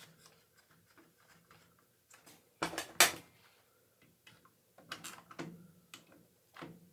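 A few short sharp clicks and taps of small printer parts being handled, with quiet stretches between; the loudest comes about three seconds in and a cluster follows near the end.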